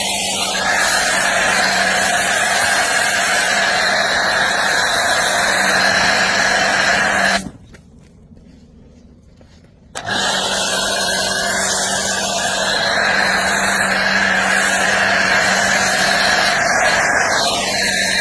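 Automatic car wash machine running: a steady rush of water spray over a low motor hum. It drops out for about two and a half seconds midway, then resumes.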